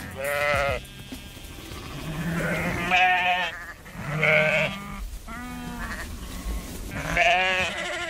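Sheep in a flock bleating, about five separate bleats with a quavering pitch, one of them lower than the rest.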